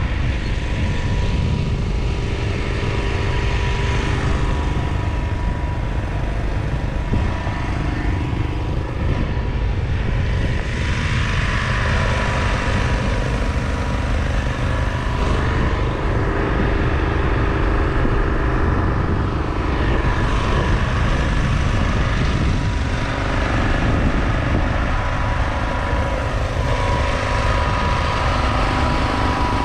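Steady drone of engines running, with a constant high hum and lower tones that shift every few seconds.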